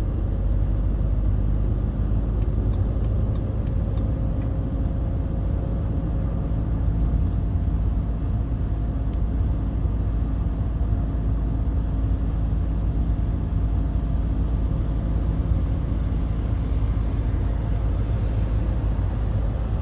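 BMW 320d's 2.0-litre four-cylinder turbodiesel running steadily, a low, even drone heard from inside the car.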